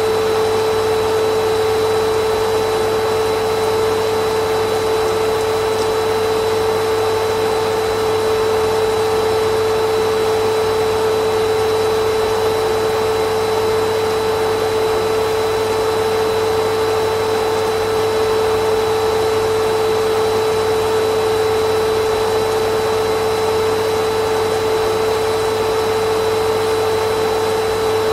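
Vacuum cleaner motor running steadily, a constant whining hum over an even rush of air, with no change in pitch or level.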